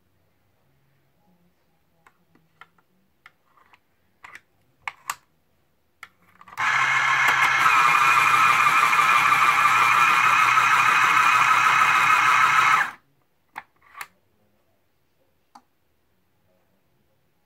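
Westcott 15511 heavy-duty electric pencil sharpener sharpening a coloured pencil: a loud, steady grind of the cutter shaving the wood and lead over a low motor hum, starting suddenly and running about six seconds before cutting off sharply. Light clicks of pencils being handled before and after.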